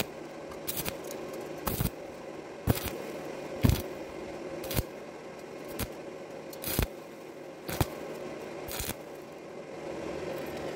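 Stick-welding arc struck in short crackling bursts about once a second, nine in all, each brief arc laying one dot of weld on 0.3 mm sheet metal over square tube. This is a stitch of separate spots rather than a continuous bead, the usual way to keep thin metal from burning through. A steady low hum runs beneath.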